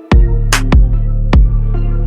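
Background electronic music with a heavy bass beat and sharp percussion hits.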